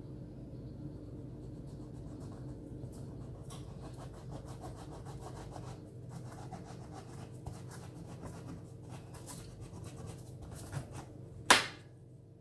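Hands working food in a round metal baking tray: soft, irregular rubbing and scraping over a steady low hum, with one sharp click near the end, the loudest sound.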